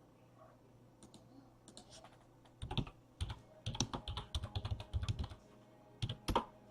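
Typing on a computer keyboard: faint keystrokes start about two and a half seconds in, come in a quick run, pause briefly, then two more come near the end.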